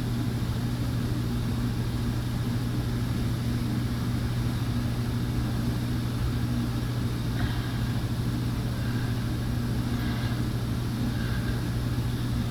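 A steady low electrical hum, one even tone with a fainter overtone, over a faint hiss, unchanging throughout.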